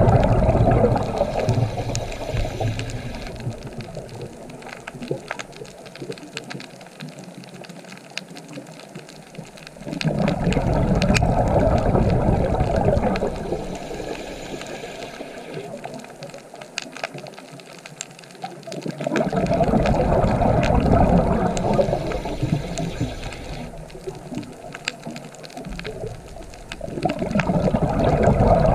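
Underwater recording of a scuba diver's exhaled bubbles burbling out of the regulator, rising in long surges about every nine seconds. Fainter scattered clicks come through in between.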